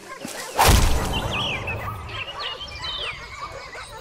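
A single gunshot about half a second in, with a rumbling echo that dies away over about a second and a half.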